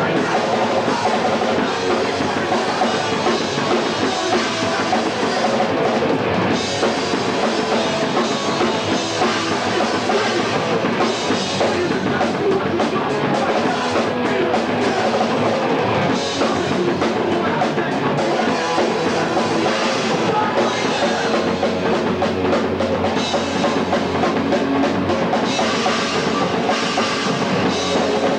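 Hardcore punk band playing live: distorted electric guitar and a fast, busy drum kit in one loud, unbroken wall of sound, with the dull top end of a home VHS camcorder recording.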